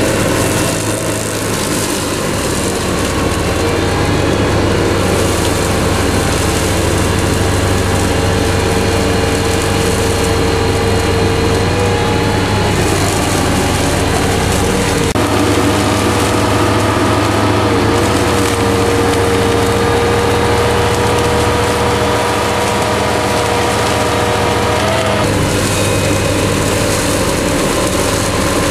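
Tractor engine running steadily under load while a reach-arm flail hedge cutter's head spins and chops through dry grass, with a steady whine over the engine.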